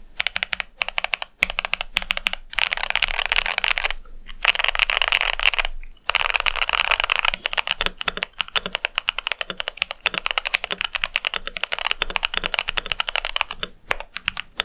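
Typing sound test on a Tecware Phantom+ mechanical keyboard with factory pre-lubed Wraith Orange tactile switches: fast, continuous keystrokes, with a few short pauses.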